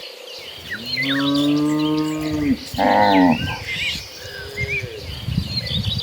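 Cattle mooing: one long, low moo, a shorter and higher moo right after it, and a fainter moo near the end, with small birds chirping.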